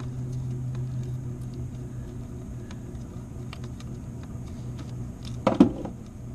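Small clicks and plastic rattles of the camshaft position sensor's wiring connector being handled and pushed onto the sensor by gloved fingers, over a steady low hum. A brief, louder pitched sound about five and a half seconds in is the loudest moment.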